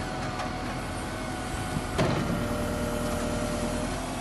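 Diesel engine of a JCB backhoe loader running steadily under load while its rear digging arm works soil, with one sharp knock about halfway through.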